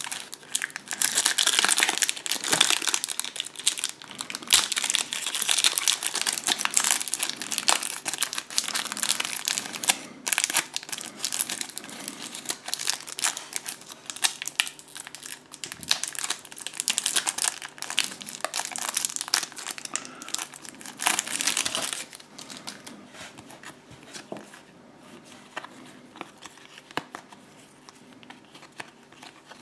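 Foil wrapper of a trading-card booster pack crinkling and tearing as it is worked open by hand. For the last several seconds a quieter rustle and light clicking of the cards being handled.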